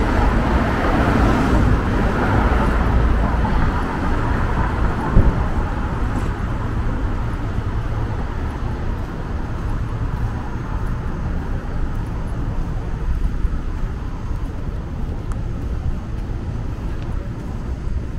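Street traffic at a city intersection: cars passing, loudest in the first few seconds, then a steady low hum of traffic. A single sharp knock about five seconds in.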